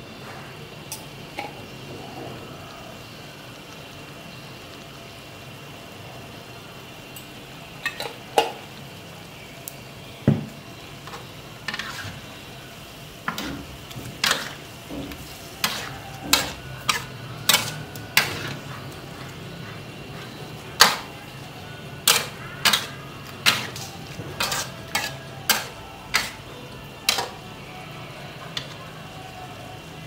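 Metal spatula scraping and clanking against a steel wok during a stir-fry of shrimp and vegetables, over a steady low sizzle. The clanks come in irregular runs, thickest through the middle and later part, with only a few near the start.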